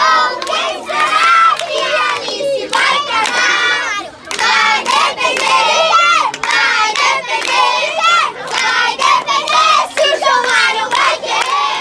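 A crowd of children and adults shouting and singing a birthday chant together in short, repeated bursts, clapping along.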